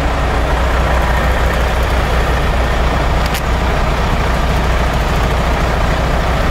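A vehicle engine idling steadily with a deep, even hum, and a single sharp click about three seconds in.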